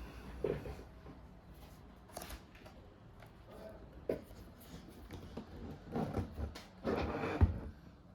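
Hands working on a laptop's parts: scattered small plastic clicks, taps and rubbing, with a sharper knock about seven and a half seconds in.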